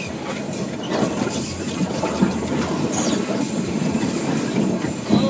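Bush branches scraping and scratching along the side of a Subaru XV as it pushes through scrub, with a short squeak about three seconds in.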